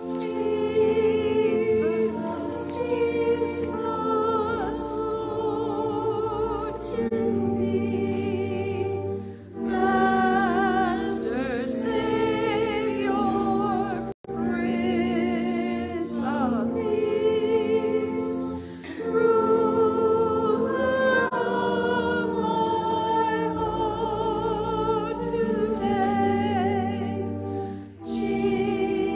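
Organ accompanying singing with a strong vibrato, in phrases of a few seconds with short breaks between them, over steady held low notes.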